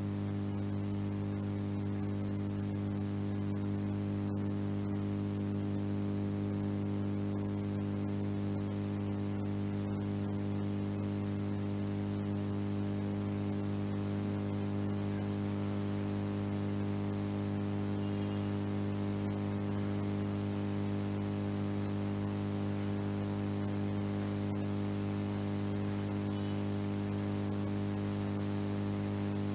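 A steady low drone made of several held tones over a faint hiss, unchanging in pitch and level.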